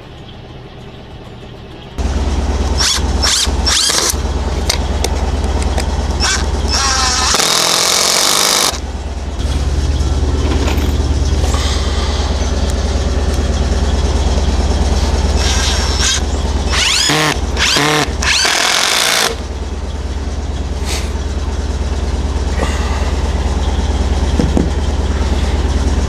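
An engine starts about two seconds in and then runs with a steady low hum, with two louder spells of rushing noise partway through.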